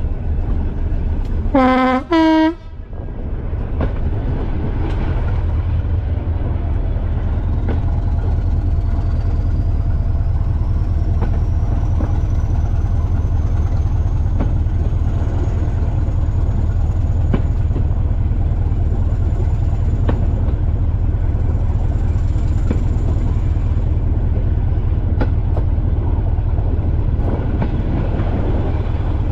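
Two-tone horn of a Class 205 'Thumper' diesel-electric multiple unit, sounded as two short blasts about two seconds in: a lower note, then a higher one. Then the heavy, steady throb of its English Electric diesel engine grows louder, while a thin whine climbs in pitch for several seconds and then holds. A few wheel clicks on rail joints come through along the way.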